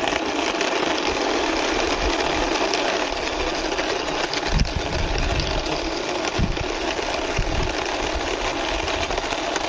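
Toy tourist bus being pushed by hand across a hard surface, its plastic wheels and body making a steady whirring rattle. A couple of low knocks come about halfway through.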